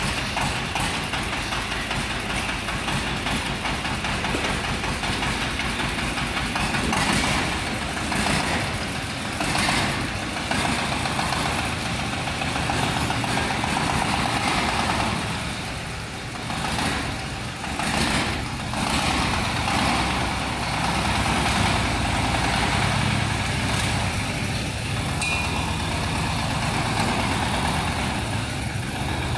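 Mini wheeled tractor cultivator's engine running steadily at idle, with a rapid even beat of firing pulses.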